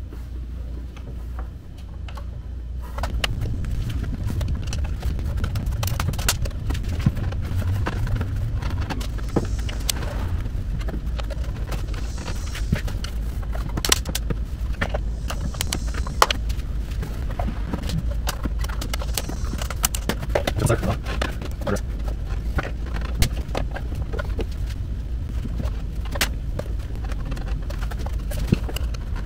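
Irregular clicks, ticks and scrapes of a flathead screwdriver prying around the plastic edge tabs of a Porsche V8's air-oil separator cover, over a steady low rumble; the clicking gets busier about three seconds in.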